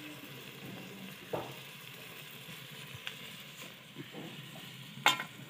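Faint steady sizzle from a pot of okra cooking over a wood fire, with small knocks as tomato is cut with a knife into the pot. One sharper knock comes about a second and a half in, and a sharp click comes near the end.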